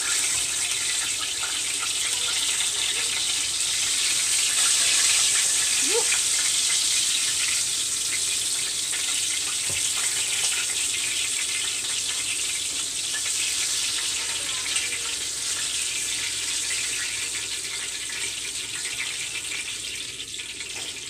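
Crab egg roll shallow-frying in hot oil in a cast-iron skillet: a steady sizzle with fine crackling, easing off a little near the end.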